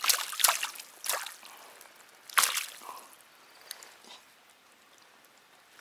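Water splashing and dripping in short bursts, the loudest about two and a half seconds in, as a big landed trout is handled in the water; the splashes grow fainter and stop over the last second and a half.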